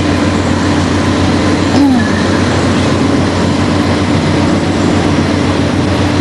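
Many pumps running together in a constant, steady drone with a low hum, pumping floodwater out of flooded basements.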